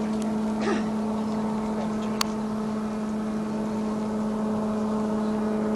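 A steady mechanical hum held on one pitch, with a single sharp click about two seconds in.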